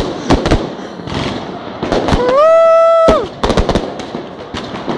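Fireworks and firecrackers going off: many sharp bangs and cracks. About two seconds in comes one long held note, louder than the bangs, that rises at its start and drops away at its end.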